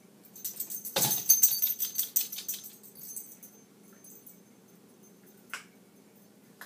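A miniature pinscher jumps down from a kitchen counter. It lands with a thump about a second in, followed by a couple of seconds of jingling and clicking as it moves off. One more sharp click comes near the end.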